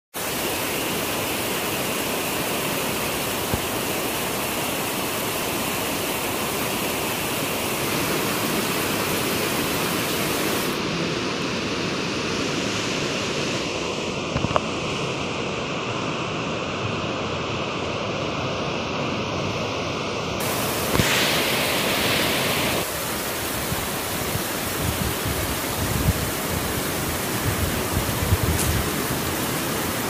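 The Marsyangdi River rushing over a boulder-strewn bed as a steady, unbroken wash of water noise.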